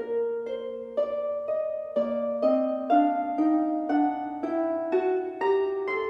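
Background music: plucked, harp-like notes in a steady melody, about two notes a second.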